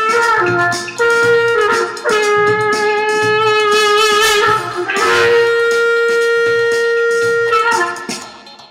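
A wind instrument playing a slow melody of long held notes with a reedy sound, one note wavering in the middle, before the music fades out near the end.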